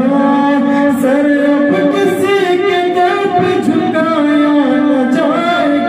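A man singing unaccompanied into a microphone, in long held notes with ornamented turns.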